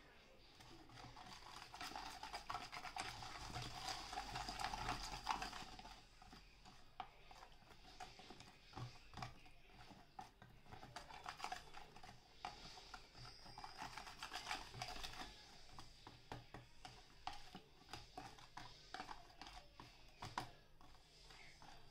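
Small wire whisk stirring a liquid marinade in a plastic tub, many quick clicks and scrapes as it knocks against the plastic, busiest from about two to six seconds in.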